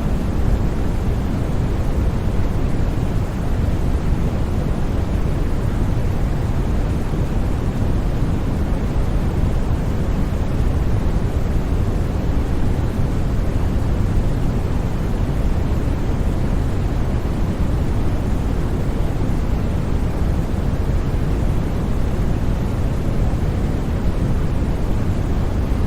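Steady, deep noise for sleep, even and unchanging, heaviest in the bass and thinning toward the top.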